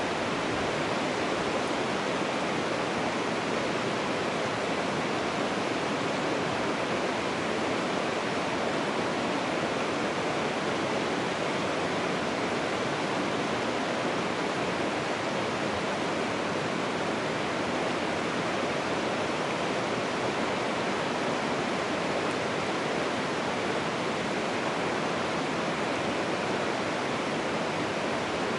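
Steady, even rushing of running water that does not change throughout.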